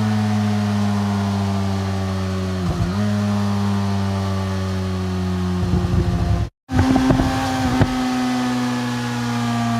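Motorcycle engine decelerating: a steady drone slowly falling in pitch. It falters briefly about three seconds in, turns choppy and cuts out for an instant around six and a half seconds, then settles back to the steady drone.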